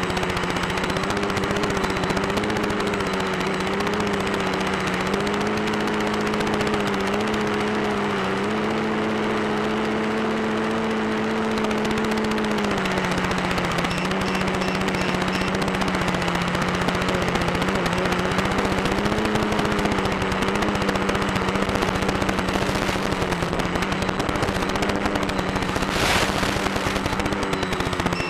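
Electric motor and propeller of a small battery-powered drone in cruising flight: a steady buzz over a loud rushing of wind. The pitch rises slightly a few seconds in and settles back down about halfway through. There is one short crackle near the end.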